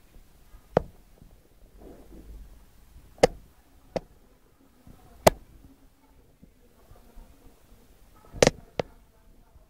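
Six irregular sharp clicks or knocks over a faint low background hum.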